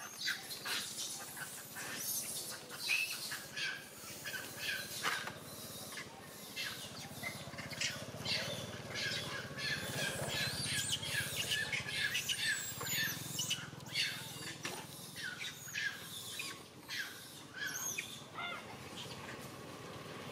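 A troop of long-tailed macaques squealing, with many short, high squeaks and chirps overlapping throughout, mixed with scattered sharp clicks and rustles.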